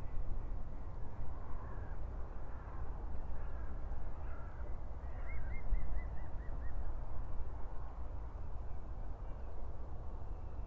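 Outdoor ambience of a steady low wind rumble, with distant birds calling: scattered calls in the first half, then a quick run of about seven short notes around the middle.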